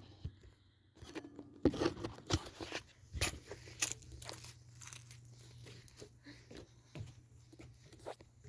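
Irregular crunching and rustling noises, short and uneven, with a faint low steady hum from about one second in to about seven seconds.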